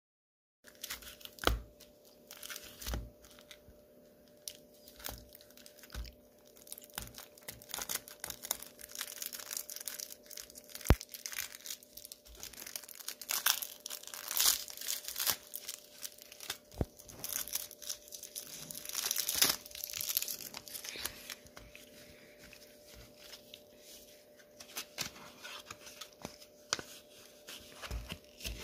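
Clear cellophane overwrap on a paperboard gum pack being picked at, torn and peeled off, crinkling in irregular bursts that are busiest midway. A single sharp click partway through is the loudest sound.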